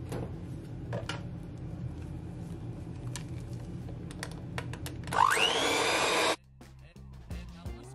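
Electric hand mixer whipping mashed potatoes in a glass bowl: a steady motor hum with occasional clicks, rising to a louder, higher whine about five seconds in that cuts off suddenly. Light background music follows near the end.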